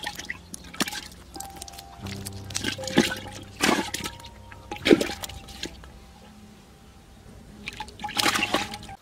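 Water splashing and sloshing in short bursts, several in the middle and one more near the end, over background music with steady held notes.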